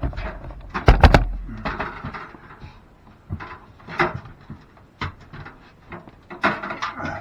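Knocks and clunks of a new folding attic ladder unit being handled and shifted around the ceiling opening, with a heavy thump about a second in and scattered lighter knocks after.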